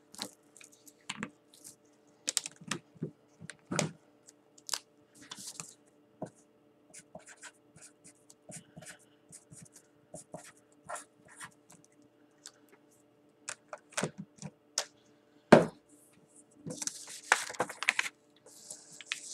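Scattered small clicks and taps of markers and hands on paper and a tabletop, with one louder knock about fifteen seconds in. Near the end the sheet of drawing paper slides and rustles as it is turned around on the table. A faint steady hum runs underneath.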